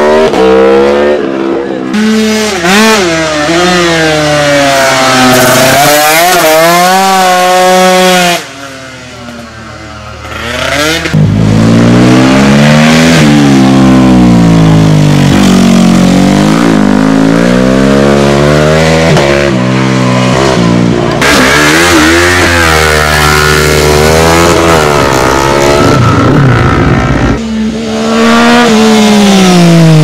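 Racing motorcycles at full throttle, one after another: first an Aprilia 1000 superbike, then a TM 450 supermotard, their engine notes rising and falling again and again through the gears. The sound drops back for a few seconds about eight seconds in before the next bike comes through, and a Triumph 675 arrives near the end.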